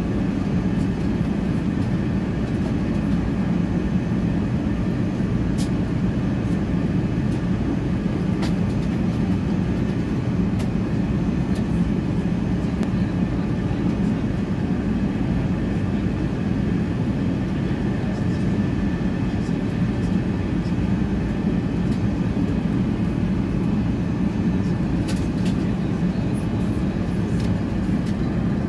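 Steady cabin noise of an Airbus A380 in cruise flight: an even, low rush of engine and airflow noise that holds the same level throughout.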